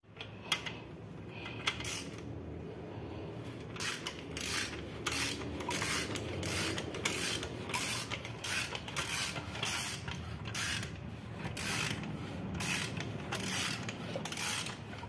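Socket ratchet wrench being worked back and forth, its pawl clicking in short bursts. The clicks are scattered at first, then from about four seconds in they settle into a steady run of roughly three bursts a second.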